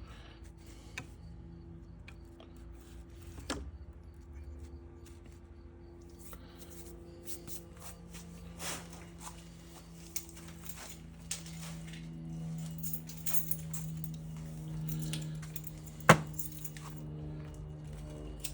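Soft background music of sustained notes that change every few seconds, with scattered light clicks and clinks of small metal parts being handled and one sharp click about sixteen seconds in.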